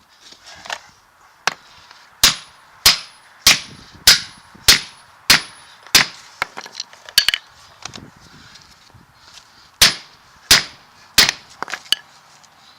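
Hammer blows on the new U-joint of a truck drive shaft as it is fitted: a run of sharp metal strikes about one and a half a second, a pause, then three more near the end.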